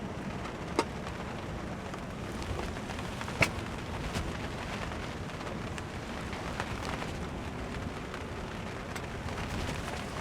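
Steady rain falling, with scattered drop ticks and two sharp, louder drop hits, about a second in and about three and a half seconds in.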